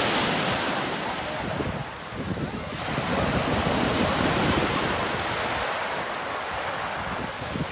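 Small waves breaking and washing up and back over a pebble beach, a steady rushing surf. It eases about two seconds in and swells again with the next wave a second later.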